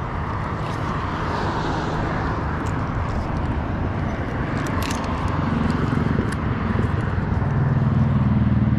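Passing road traffic on the causeway, with one vehicle's engine hum growing louder in the second half. A few light clicks about five seconds in.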